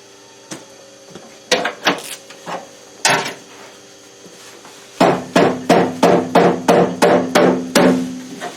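Sharp knocks: a few scattered ones, then from about five seconds in a quick even run of about three a second, each with a ringing low tone.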